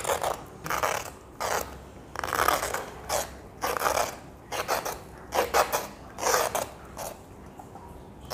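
Hand vegetable peeler scraping the skin off a bottle gourd, about a dozen short scraping strokes at an uneven pace.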